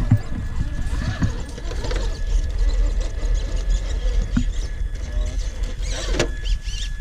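Small electric motor of an RC crawler truck whining steadily under a low rumble, with faint squeaks and a couple of sharp knocks, about four and six seconds in.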